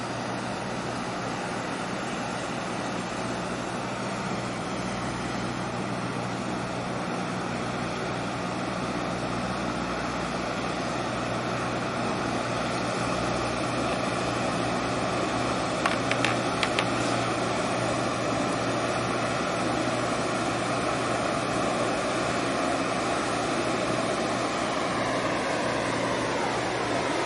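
Marine diesel engine drone from the tug escorting the container ship, a steady low hum under a wash of noise. A few brief clicks come about halfway through, and near the end a whine drops in pitch.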